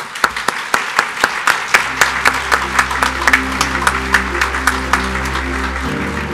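Applause, with close, regular hand claps about four a second standing out over the crowd. Instrumental music with a steady bass comes in about two seconds in and carries on under the clapping.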